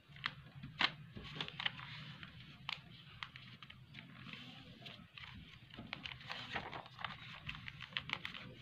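A sheet of origami paper rustling and crackling as hands fold it and press the creases flat, with many small irregular crackles and taps, over a faint steady low hum.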